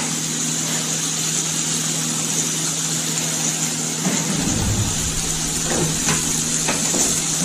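Diced potatoes and broccoli sizzling in a frying pan over a steady low hum. From about four seconds in there is a low rumble and a few light knocks and clicks as the pan is lifted and moved.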